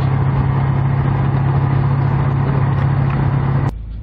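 Light sport aircraft's engine (Roko Aero NG-4) running steadily at low power, a constant low drone heard from inside the cockpit. It cuts off abruptly near the end and is replaced by a quieter, lower rumble.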